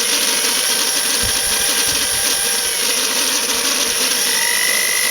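A power tool running steadily with a loud hiss; about four seconds in a thin, high whine joins it.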